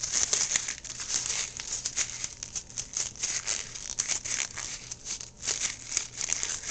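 Sheet of paper crinkling and crackling as it is handled and folded shut around a load of airsoft BBs, with many small irregular crackles.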